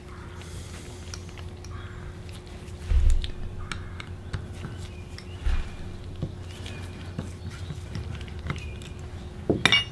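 Small metal carburetor parts and hand tools clicking and clinking as a lawn-mower V-twin carburetor is taken apart by hand, with dull thumps about three and five and a half seconds in and a sharp burst of clinks near the end. A faint steady hum runs underneath.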